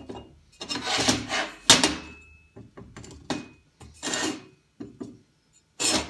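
Steel parts being handled and shifted on a metal welding table: scraping and knocking, with one sharp clank just under two seconds in that rings briefly.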